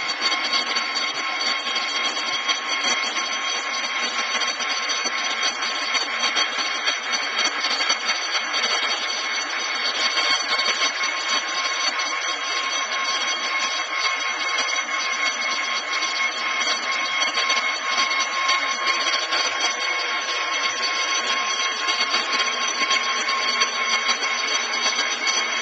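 Metal lathe fitted with a Globe milling attachment running, its spindle turning a 14-inch aluminium faceplate: a steady machine whine with several high tones over a dense hiss.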